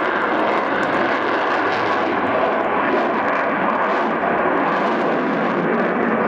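MiG-29 fighter's twin RD-33 turbofan jet engines at display power, a loud, steady rushing jet noise as the aircraft climbs steeply overhead.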